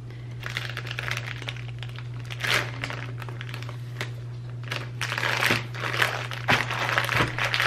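Plastic zip-top freezer bag crinkling as it is pressed shut along its zipper and then lifted and squeezed while full. The crinkles come in repeated bursts, louder and busier in the second half.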